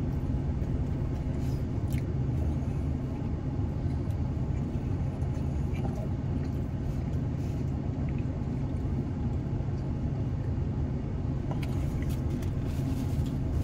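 Steady low rumble of an idling car, with a few faint clicks.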